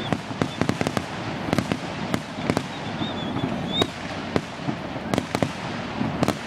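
Fireworks display: many sharp bangs and cracks going off in quick, irregular succession over a continuous rumble of further explosions.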